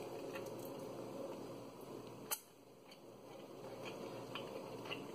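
Faint chewing and wet mouth sounds of a person eating, with scattered small clicks and one sharp click about two and a half seconds in.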